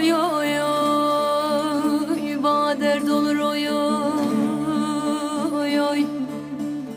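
Turkish folk song (türkü) with a long, held, wavering sung note over instrumental accompaniment.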